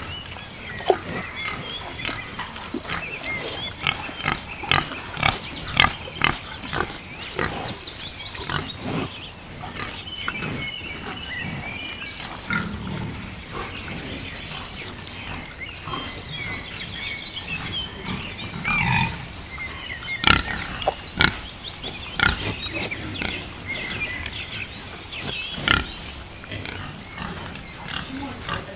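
Wild boar grunting: many short, irregular grunts, with a few louder ones about twenty seconds in.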